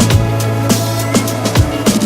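Electronic background music with a steady drum beat over sustained bass notes.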